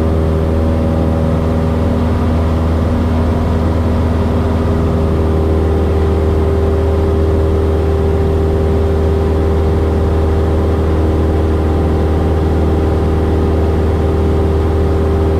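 Cessna 172S's four-cylinder Lycoming engine and propeller droning steadily in cruise, heard inside the small cabin.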